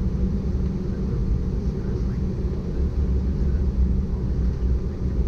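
Steady low rumble inside the cabin of an Embraer ERJ-190 airliner as it taxis, its engines at taxi power.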